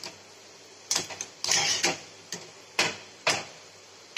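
A wire-mesh skimmer clicking and scraping against a steel wok six or seven times, with one longer scrape in the middle, as deep-frying momos are turned over in hot oil. Under it the oil sizzles steadily.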